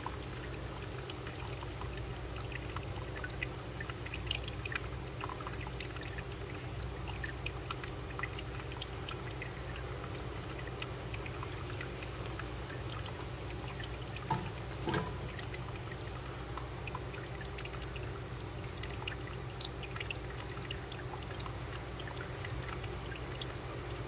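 Faint trickling and dripping water over a steady low hum, with many small scattered ticks and a couple of slightly louder soft sounds about halfway through.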